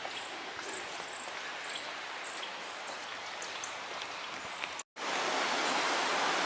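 Steady rush of flowing river water. It cuts out for a split second about five seconds in and comes back louder.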